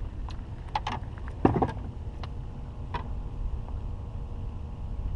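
A few sharp clicks and knocks from a caught rockfish and its hook rig being handled in a small rowboat, the loudest a thump about one and a half seconds in, over a steady low rumble of wind on the microphone.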